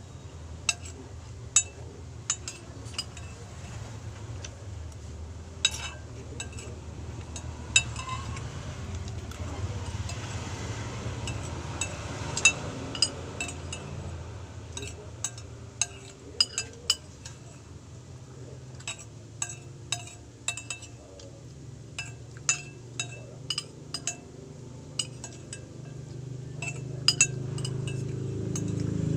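Metal utensils clinking against a plate in short, irregular, ringing taps, scattered throughout as food is scooped up to eat.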